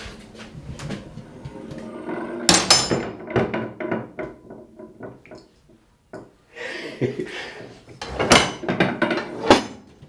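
A homemade iron bar door latch being worked on a wooden door. There is a sharp metallic clank with a ringing tail about two and a half seconds in, then scattered clicks, and a run of clanks and rattles in the last few seconds as the latch bar and door move.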